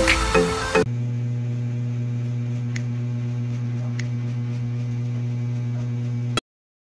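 A steady low electrical hum with a buzzy edge, with two faint clicks about three and four seconds in. It cuts off abruptly shortly before the end.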